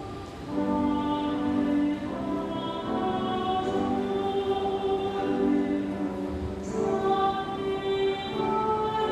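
A choir singing a slow church hymn in long held notes, with the pitch changing every second or two.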